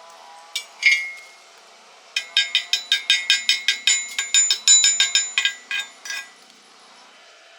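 Hammer striking steel: two ringing knocks, then a quick run of about twenty metallic strikes, roughly five a second, that stops about six seconds in.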